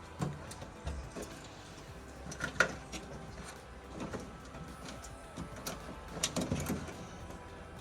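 Scattered light clicks and knocks of parts being handled, with the sharpest knock a little over two and a half seconds in and a short cluster of knocks past the six-second mark.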